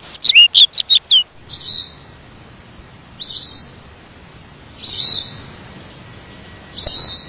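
Birds calling: a quick run of clear, downslurred whistled notes, about five a second, that stops a little over a second in, then four short, harsh calls spaced about two seconds apart.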